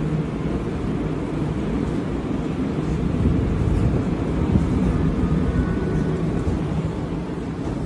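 Steady low rumble of metro station ambience, with a faint high tone briefly about five seconds in.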